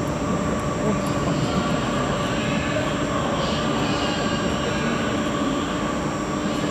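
A steady mechanical hum with several constant whining tones over an even background rumble, as from machinery running in a large railway workshop hall.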